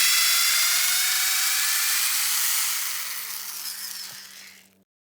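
Power drill boring into a wooden tree stump: a high motor whine over a rasping grind of the bit in the wood, holding steady and then dying away near the end.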